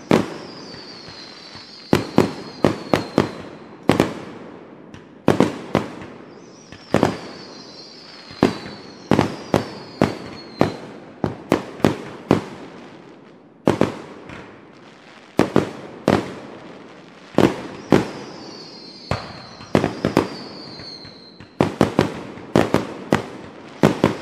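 Distant consumer fireworks and firecrackers going off all around: many sharp bangs, often several in quick succession, each with an echoing tail. A high whistle falls slowly in pitch several times.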